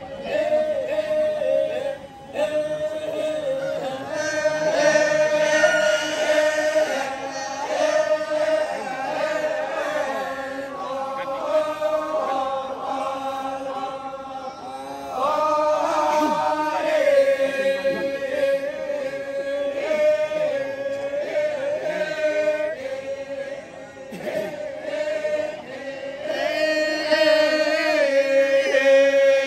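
Torajan badong funeral chant: a group of voices chanting together on a steady held note while the melody rises and falls above it, pausing briefly twice for breath.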